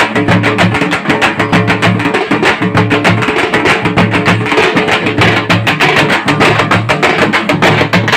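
Fast, loud drumming with sharp strokes several times a second, over sustained low instrumental notes: live festival-procession music.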